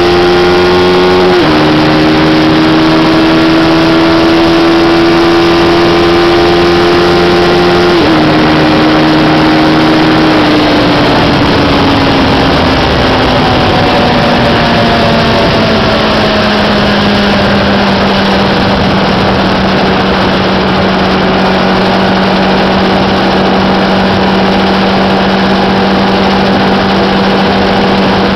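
Sport motorcycle engine under way at highway speed. The note climbs and drops sharply at two upshifts, about a second and eight seconds in, then sinks gradually as the throttle eases and settles into a steady cruise, under constant wind and road rush.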